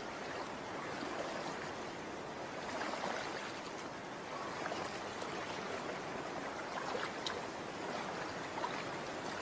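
Shallow stream water running steadily, with a few small splashes.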